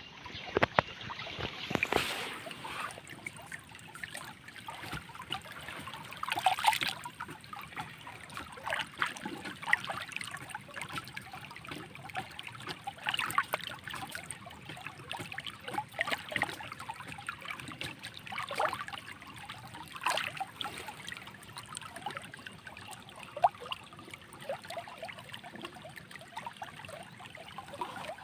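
Water of a small stream trickling and splashing, with frequent irregular gurgles and splashes over a steady rush.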